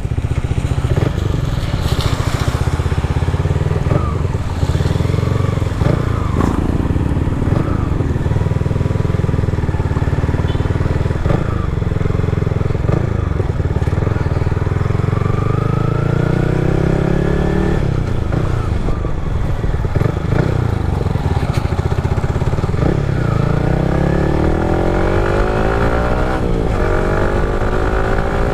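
Yamaha MT-15's single-cylinder engine running through an aftermarket Akrapovic-replica full exhaust while riding. It holds a steady note, then rises in pitch as it accelerates, once about halfway through and again near the end.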